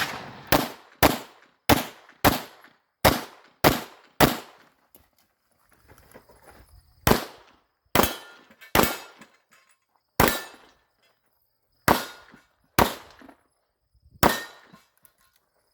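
Handgun shots fired in an IPSC course of fire: about fourteen sharp single reports. They come roughly every half second for the first four seconds, then stop for about two and a half seconds. After the pause they come more slowly and unevenly, in ones and twos.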